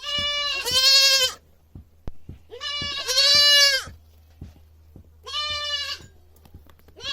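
Young goat bleating loudly: three long, high-pitched cries about two seconds apart, the first two each breaking into a louder, higher second half, with a fourth cry starting at the very end.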